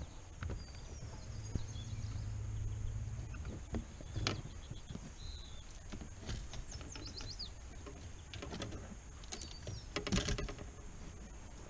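Small birds chirping now and then over a faint outdoor background, with scattered knocks and clicks. A low hum runs for about two seconds near the start, and a louder clattering burst comes near the end.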